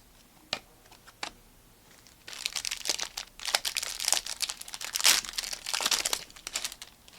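Trading card pack wrapper being torn open and crinkled, a run of dense crackling from about two seconds in, after a few light clicks and taps.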